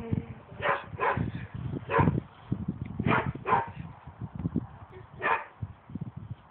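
A dog barking in short, separate barks, about six of them spread over five seconds.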